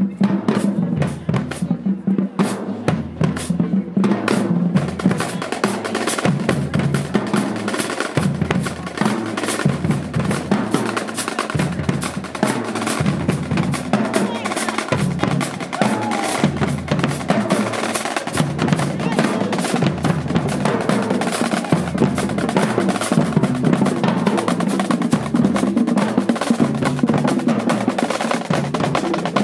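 Marching band drumline playing a cadence: rapid snare drum strokes over bass drums on a steady beat, the snare playing growing denser about four to five seconds in.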